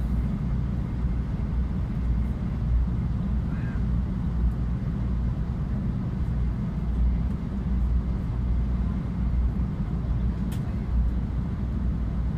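Steady low rumble of a JR West Shinkansen high-speed train running at speed, heard from inside the passenger cabin.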